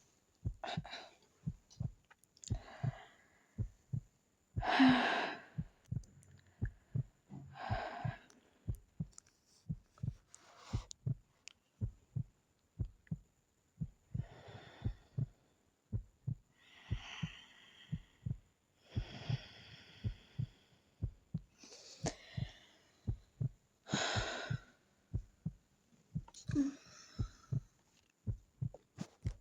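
A sleeping girl breathing: a short airy rush of breath every two to three seconds, a few of them louder. Under the breaths runs a steady string of soft low thumps, about two a second.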